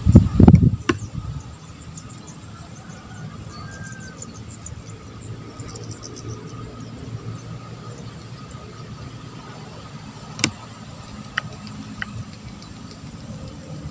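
A loud, low thump right at the start. Then steady outdoor ambience: a low rumble under rapid high insect chirping, with a sharp click about ten and a half seconds in and two fainter ticks soon after.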